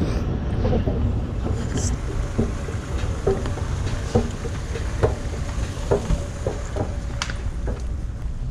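Department-store escalator riding down: a low, uneven rumble with scattered light clicks, mixed with handling noise from the camera.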